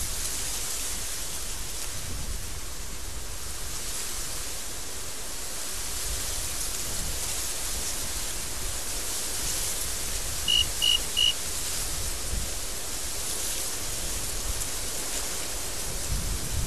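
Wind blowing steadily in a desert storm, a rushing hiss that swells and eases. About ten seconds in, three short high beeps come in quick even succession.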